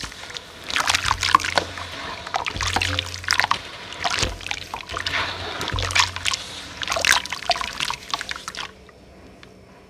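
Hands squishing and mashing soft crumbled powdery pieces in a bowl of water: continuous wet splashing and sloshing with many crackly squelches. It stops suddenly about a second before the end.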